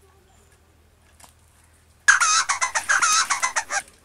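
A chicken cackling, a quick run of loud, repeated clucks that starts abruptly about two seconds in and cuts off sharply before the end. It is a sound effect laid over the scene.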